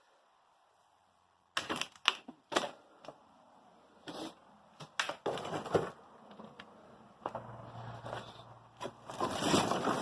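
Irregular knocks, clicks and rustling, with a short low hum about seven seconds in and a louder rustle near the end.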